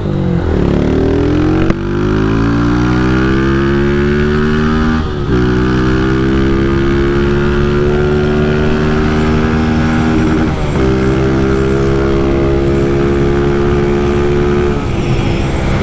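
Honda motorcycle with an aftermarket GRS exhaust accelerating hard up through the gears. The engine note rises steadily in each gear and drops back at four upshifts, about 2, 5, 11 and 15 seconds in.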